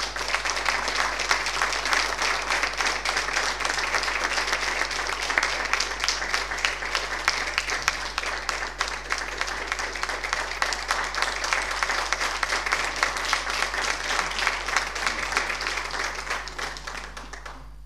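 Audience applauding, a steady round of clapping that tapers off near the end.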